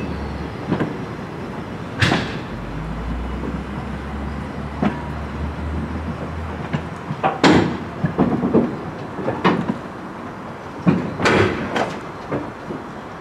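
DR1A diesel-train cars rolling past on jointed track, wheels and couplings giving a steady low rumble broken by repeated sharp clanks and knocks. The loudest clanks come about 2 s, 7.5 s and 11 s in.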